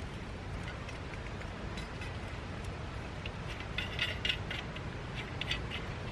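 A few light metallic clinks in two quick clusters, about four seconds in and again a little later, over a steady low rumble.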